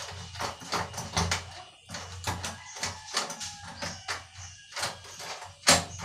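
Irregular metallic clicks and rattles of a door knob and its latch being fitted and worked by hand, with a sharper click near the end.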